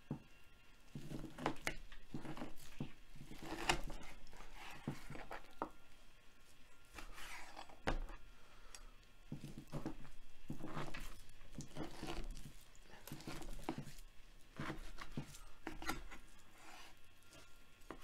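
Chef's knife sawing through raw beef chuck on a plastic cutting board: a series of drawn slicing strokes through the meat, about one every second or so, with an occasional sharp knock of the blade on the board.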